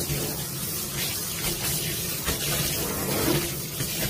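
Water running into a stainless-steel sink while a wet cloth wipes the basin: a steady hiss of flowing water.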